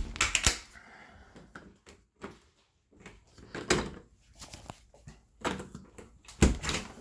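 A handful of separate knocks and clunks with quiet stretches between them.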